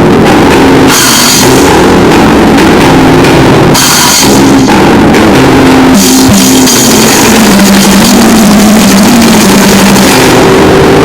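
Noisegrind (noisecore) music: drums and cymbal crashes under a loud wall of distorted noise, with a held, buzzing low drone that shifts pitch a few times. Cymbal splashes cut through about one, four and six seconds in.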